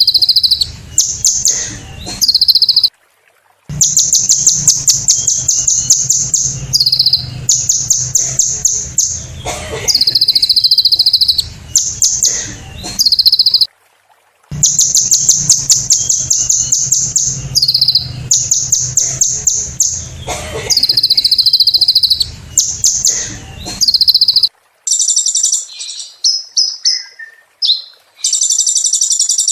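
A sunbird (kolibri ninja) singing fast, high-pitched trills and rapid chattering note series, with two brief pauses. Near the end, the song changes to more varied, separate notes.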